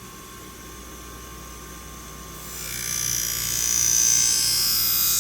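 Scissor blade drawn with light pressure across the spinning 240-grit diamond wheel of a Wolff Twice As Sharp sharpener. A steady motor hum, then from about two and a half seconds in a loud hissing grind with a high whine as the edge meets the wheel.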